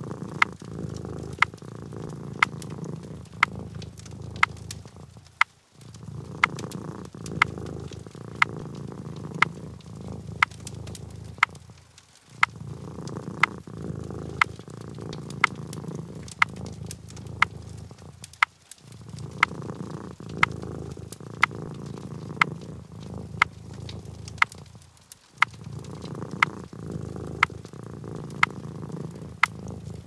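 Cat purring in stretches of about six seconds with short breaks between them, over a regular row of sharp clicks about once a second.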